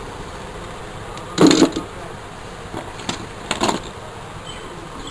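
Hands handling the battery and soldered terminal wire inside a digital scale's plastic battery compartment. There is one sharp rattle about a second and a half in, then a few lighter clicks, over a steady background hum.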